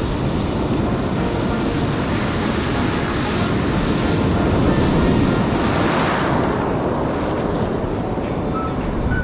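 Sea surf breaking and washing up the shore, with wind buffeting the microphone. One wave swells loudest about three to six seconds in, then falls back.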